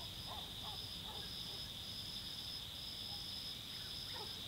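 A steady chorus of night insects trilling high, with a few faint, short barks from distant dogs.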